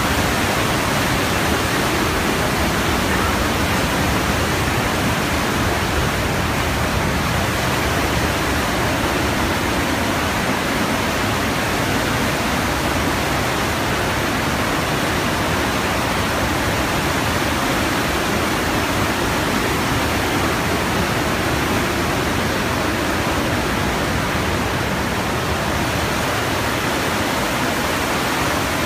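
The Partnach, a mountain river, rushing as white water through a narrow rock gorge: a loud, steady rush of water.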